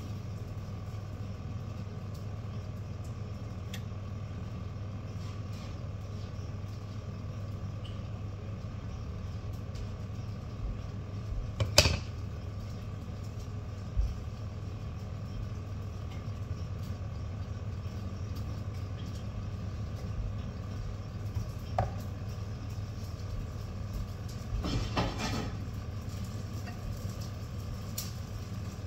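A steady low hum of a small motor or fan. A few sharp clicks or knocks come through it, the loudest about twelve seconds in, with a short rattle near the end.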